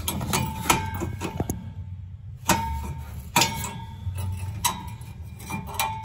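Irregular sharp metal clicks and taps, some with a brief ring, about eight in all. They come from a flare box wrench working at a stuck thermocouple nut on a boiler's gas valve, a fitting so wedged that it may be cross-threaded.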